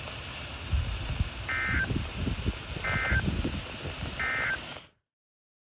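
NOAA Weather Radio EAS end-of-message signal: three short bursts of warbling data tone at even spacing, about a second and a half apart, over steady radio hiss. They mark the end of the severe thunderstorm warning broadcast. The audio cuts off abruptly about five seconds in.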